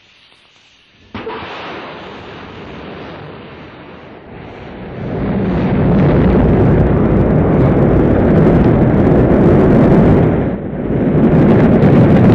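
Rocket engines igniting and firing at liftoff, a dense rumble with no distinct tones. The noise starts suddenly about a second in, grows much louder about five seconds in and stays loud, dipping briefly near the end.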